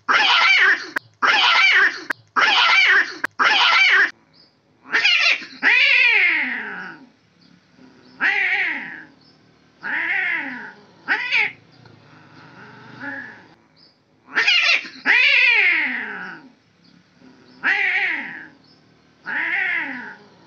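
Two male domestic cats fighting over territory: a quick run of about four loud screeching cries during a brief scuffle in the first few seconds, then long yowls that fall in pitch, repeated every couple of seconds during the standoff.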